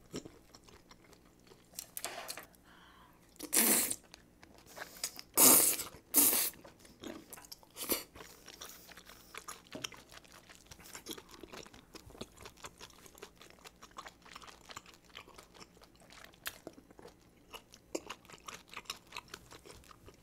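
Close-miked chewing of a mouthful of seafood: soft wet chewing clicks throughout, with three louder crunches between about three and a half and six and a half seconds in.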